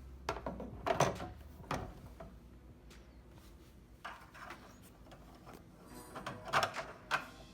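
Handling noises of plastic plumbing parts: short knocks and scrapes, a cluster in the first two seconds and another a second before the end, with quieter fiddling between.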